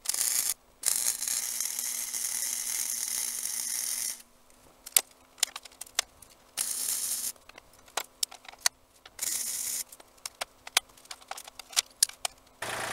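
Arc welding a steel strap onto a steel water-heater tank: several spells of steady hissing crackle, the longest about three seconds near the start, separated by pauses with scattered sharp clicks and ticks, over a faint steady hum.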